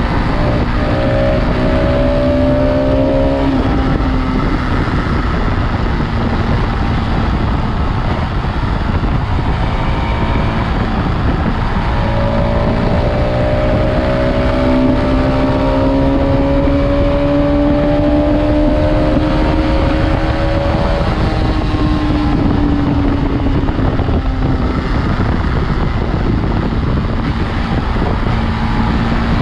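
Bajaj Pulsar RS200's single-cylinder engine heard through its stock exhaust while the bike is ridden, the pitch climbing under acceleration briefly near the start and again for a long stretch through the middle, then dropping off as the throttle is closed. Heavy wind blast on the microphone runs under it all.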